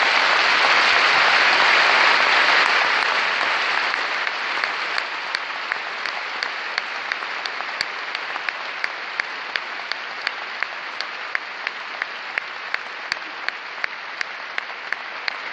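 A large audience applauding, loudest over the first few seconds, then easing into steady rhythmic clapping in unison at about three claps a second.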